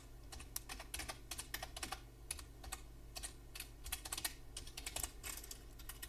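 Computer keyboard being typed on: a faint, uneven run of key clicks, several a second.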